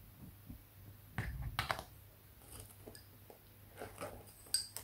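Lace bobbins clicking and knocking together as pairs are crossed and twisted for a cloth stitch. There are a few faint, scattered clicks, with a cluster about a second in and another near the end.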